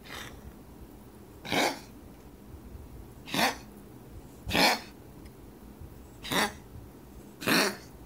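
A domestic cat coughing: five short coughs, each a second or two apart.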